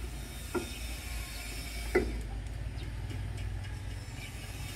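Hand tool working on an excavator's hydraulic control valve as the boom spool cap is taken off: two sharp metallic clicks about a second and a half apart and a few faint ticks, over a steady low hum.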